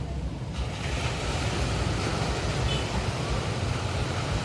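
Ocean surf: waves washing onto the shore, the hiss of a breaking wave swelling up about half a second in, over a low rumble of wind on the microphone.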